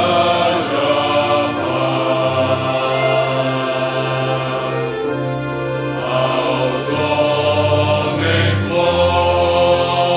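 Choir and orchestra performing a sacred Christmas piece: sustained sung chords over an accompaniment whose bass notes change every second or two.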